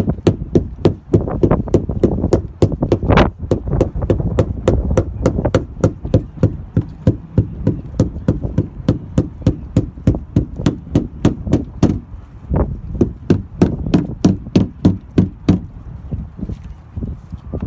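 A rubber mallet tapping a rubber keel-guard strip onto a dinghy's gel-coated hard bottom in steady, quick blows, about three a second, pressing down the pressure-activated adhesive. Wind buffets the microphone with a low rumble.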